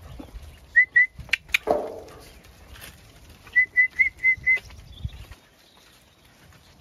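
A Zwartbles sheep bleats once. Around it come short, high whistled notes: two, then a quick run of five a few seconds later, with a couple of sharp clicks in between.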